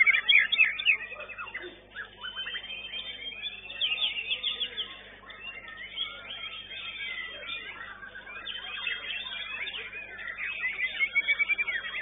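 White-rumped shamas singing together in a song contest: a dense, overlapping stream of quick whistles, fast trills and chattering phrases, strongest in the first second and again near the end.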